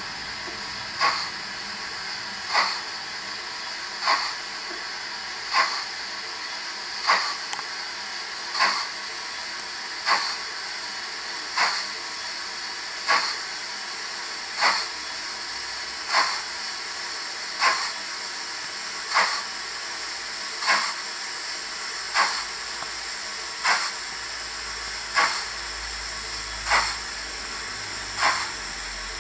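Sound-fitted Dapol model of the 0-4-0 saddle tank steam locomotive Invincible: its on-board sound unit plays a steady steam hiss with a short chuff about every one and a half seconds, as of a loco working very slowly.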